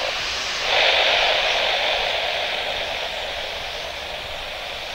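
Rushing radio static from an air-band receiver, opening suddenly about a second in and slowly fading, between controller transmissions.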